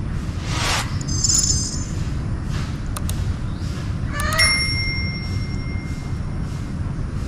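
Subscribe-reminder sound effect: a short high chime, a click, then about four seconds in a bell ding that rings on for a couple of seconds, over a steady low rumble.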